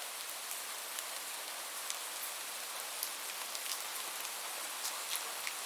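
Steady rain falling: an even hiss with scattered sharper drops ticking through it.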